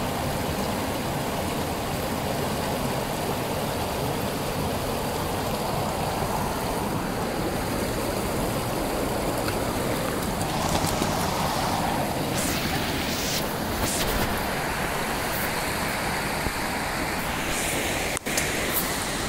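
River rapids rushing steadily over shallow rock ledges.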